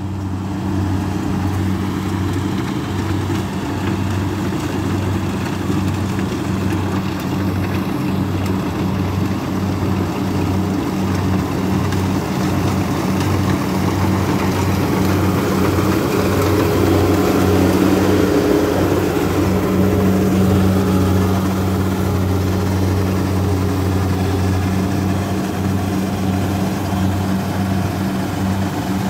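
Kubota DC60 combine harvester running steadily under load while cutting and threshing rice, its Kubota V2403 four-cylinder diesel giving a constant drone. It grows a little louder around the middle as the machine passes close, then eases as it moves away.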